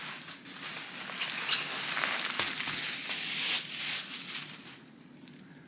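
Plastic bag and plastic-wrapped rice balls crinkling and rustling as they are pulled out and tipped onto a table, with sharp crackles, stopping about five seconds in.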